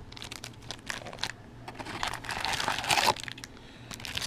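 Foil wrappers of trading-card jumbo packs crinkling as the packs are handled and stacked, with many small crackles and light taps. The crinkling is loudest and densest from about two to three seconds in.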